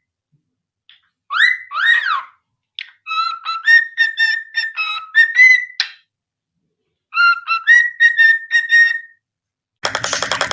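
A parrot whistling a tune: two swooping whistles, then two runs of clear notes stepping up and down. Near the end a loud buzzing rattle cuts in abruptly.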